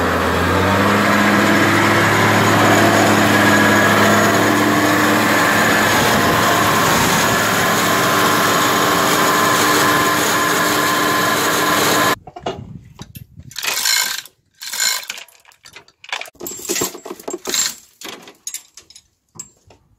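Nissan Patrol's engine running steadily; the vehicle came into the shop with a strange noise. After about twelve seconds it cuts off suddenly, and irregular knocks and clatter of workshop work follow.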